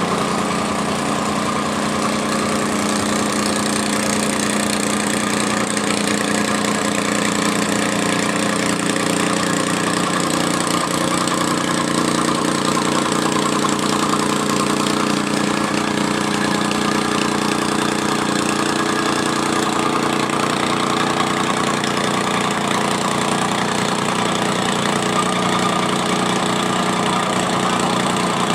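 Tamping rammer (jumping jack compactor) running at a steady speed, its small engine droning without change while it compacts backfill soil.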